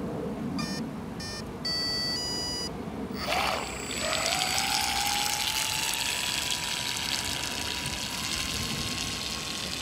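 Electric motor of a 3D-printed RC model speedboat sounding its speed controller's arming beeps: a few short beeps, then two longer tones. About three seconds in the motor spins up with a rush of water, then runs with a steady whine that rises slowly in pitch as the boat speeds across the water, spray hissing beneath it.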